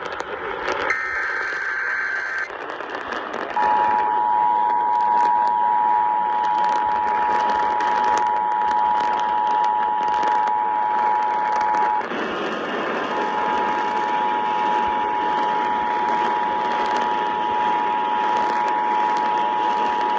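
Emergency Alert System broadcast tones over AM radio hiss. A short SAME data-header burst sounds about a second in, then the steady two-tone EAS attention signal sounds for about eight seconds, breaks off for about a second, and sounds again.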